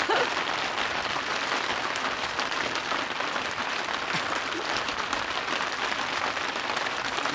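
A steady, even hiss of background noise, with a few faint light clicks.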